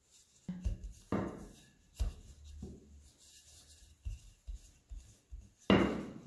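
Wooden rolling pin rolling over and pressing down on a slab of laminated croissant dough on a floured worktop: several soft thumps and rolling rumbles, strongest in the first couple of seconds.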